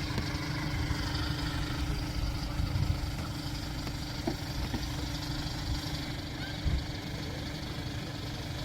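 A steady low engine drone with a constant hum.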